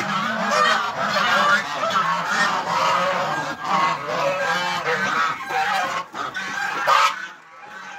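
A flock of white domestic geese honking, many loud overlapping calls that die down near the end.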